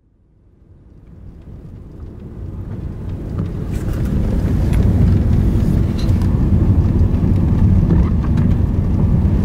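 Car on the move, heard from inside the cabin: a steady low rumble of engine and road noise that fades in from silence over the first four or five seconds, then holds steady.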